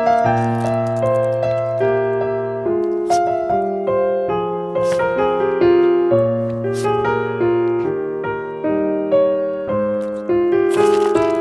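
Background piano music: a light melody of held notes over a steady bass line, with a few faint clicks.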